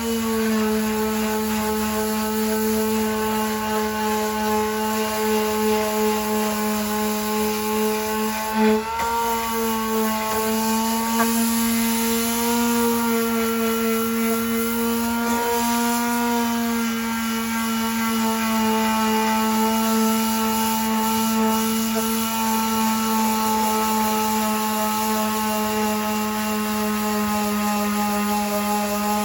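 Power sander running steadily, sanding paint off a car body panel with 60-grit paper; its motor hum dips slightly in pitch twice, with a brief knock about nine seconds in.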